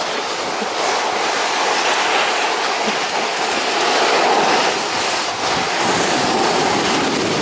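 Snow tube sliding fast down a packed snow run: a steady rushing, scraping hiss of the tube over the snow, mixed with wind on the microphone.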